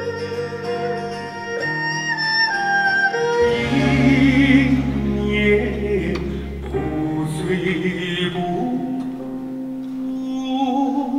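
Music: a held, stepwise melody for the first few seconds. About three and a half seconds in, it changes to a different piece with a deep low drone under a singing voice with wide vibrato.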